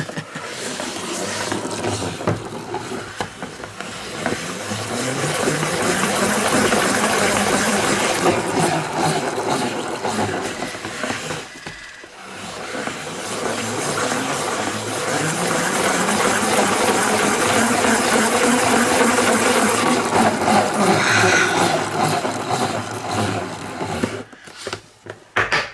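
Plastic salad spinner driven hard by hand, its basket whirring noisily with paint and card inside. It spins twice, each time the whir rising in pitch as it speeds up and falling away as it coasts down, with a brief lull about halfway through.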